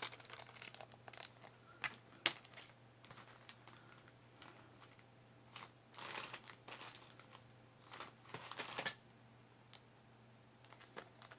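Handling noise of small items: scattered light clicks and short crinkling rustles, the longest a little past halfway and again near the end, over a steady low hum.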